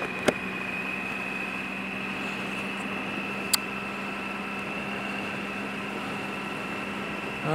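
A Triumph Sprint ST 1050's three-cylinder engine running steadily on the move, under wind and road noise, with a steady high whine. There is one short click about three and a half seconds in.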